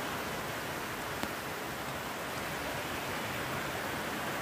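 Steady rain falling, an even hiss, with one faint click about a second in.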